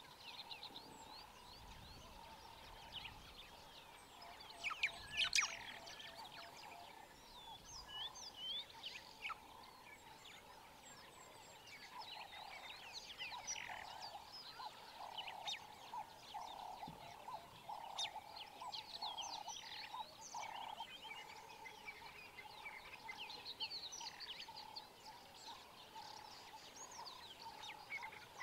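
Bush ambience of many small birds chirping and calling in short, scattered notes, over a steady pulsing call underneath. A few sharp clicks come about five seconds in.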